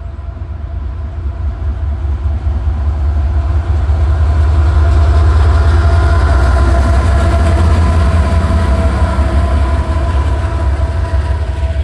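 Freight train led by two CSX GE diesel-electric locomotives approaching and passing close by: the heavy rumble and engine drone grow louder over the first few seconds and stay loud as the locomotives go past.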